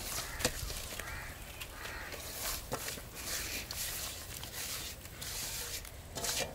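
Gloved hand scraping a crumbly spice mix off a steel plate into a steel tub of flour, with a few light clicks of metal. Birds call a few times behind it.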